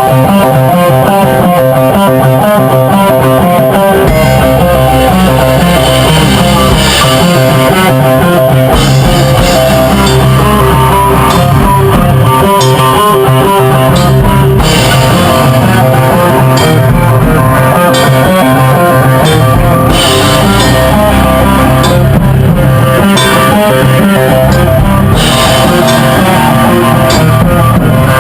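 Loud rock music: electric guitar with a drum kit, the low end filling out about four seconds in.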